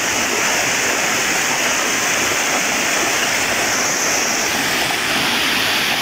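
Shallow stream water rushing and splashing down a sloping rock slab in a small cascade, a steady, unbroken rush.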